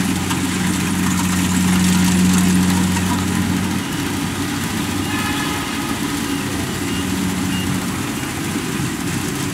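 Kubota rice combine harvester's diesel engine running steadily under load while it cuts and threshes, with the machinery clattering. The strong low hum weakens about four seconds in as the machine turns.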